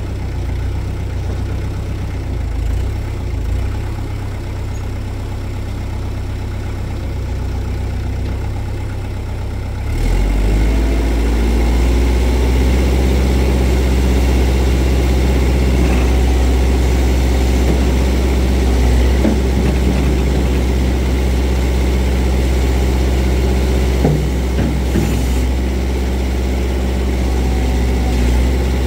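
Kubota L48 backhoe's four-cylinder diesel engine running at idle, then picking up and running steadily louder about ten seconds in.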